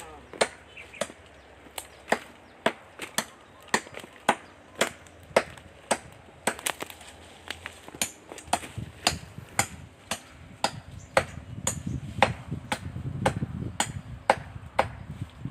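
Axe chopping into a standing tree trunk, with strokes landing at a steady pace of about two a second. A low rumbling noise comes in underneath about halfway through.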